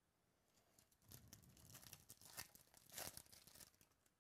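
Foil wrapper of a 2017 Topps Chrome Jumbo baseball card pack being torn open and crinkled by hand: a run of crackling tears starting about a second in, loudest near the middle and again near the end.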